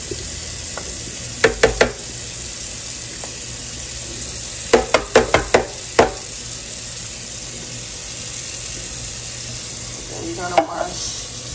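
A metal can knocked against a colander to shake out chili beans, in short sharp ringing taps: three quick ones, then a run of about six, then one more near the end, over a steady hiss.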